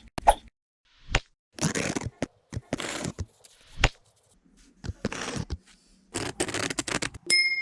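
A series of short scraping or rubbing strokes from hand tool work, each about half a second long, with sharp clicks and knocks between them, then a brief ringing metallic clink near the end.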